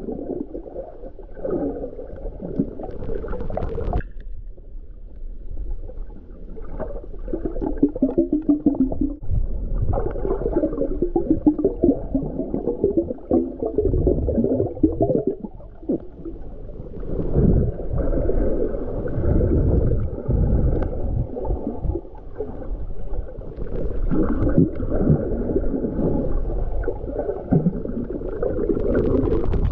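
Muffled underwater sound from a camera held below the surface: gurgling, moving water and uneven low rumbles, with a sudden break about four seconds in.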